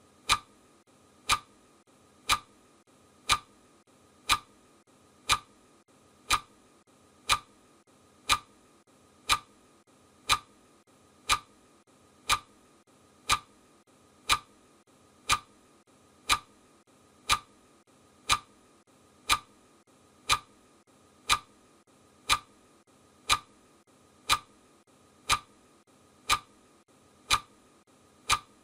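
Clock ticking steadily, one sharp tick each second, marking the seconds of a countdown timer.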